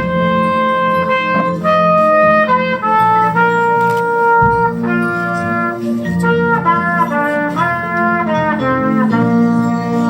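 Instrumental music: a lead melody of held notes, changing pitch every half second to a second, over a steady accompaniment, with no singing.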